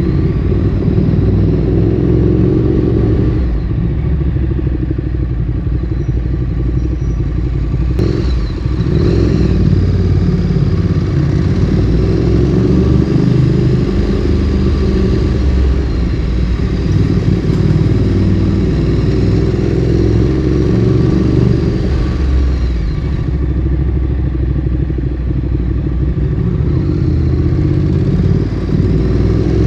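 Ducati Streetfighter 848's V-twin engine running through a Termignoni exhaust while riding, its note rising and falling with the throttle. A sharp click sounds about eight seconds in.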